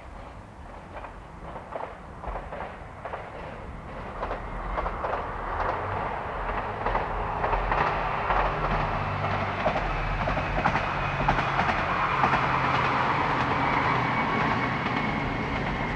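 Train approaching and running past, its wheels clicking rhythmically over rail joints, growing louder for about the first half and then holding loud, with a low engine hum beneath.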